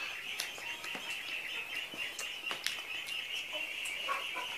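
Wet eating sounds, short smacks and clicks of chewing and hand-to-mouth eating, over a steady high-pitched background chirping and buzzing.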